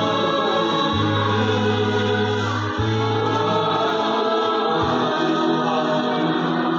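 A church choir singing a hymn in several parts over sustained keyboard chords, the bass note changing about every two seconds.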